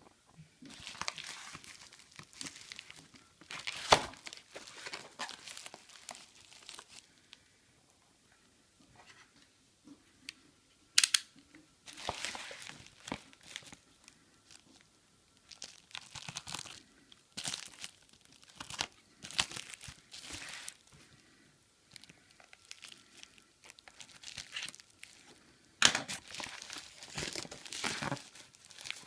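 Product packaging being torn open and crumpled by hand: irregular bouts of crinkling and tearing with a few sharp crackles, and short pauses between bouts.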